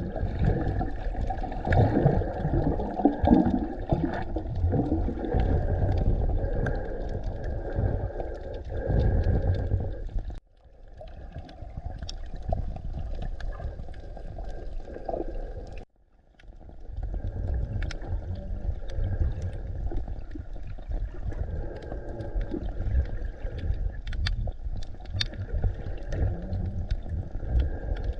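Muffled underwater sound from a camera in a waterproof housing during snorkelling: a dull rush and gurgle of water with scattered faint clicks. It cuts out sharply twice, about ten and sixteen seconds in.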